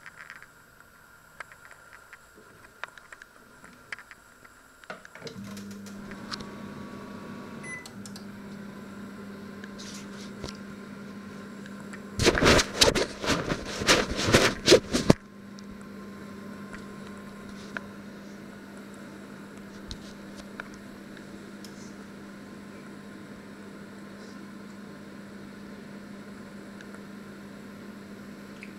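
Panasonic microwave oven starting up about five seconds in and then running with a steady hum. From about twelve seconds in, a loud burst of irregular clattering knocks lasts about three seconds.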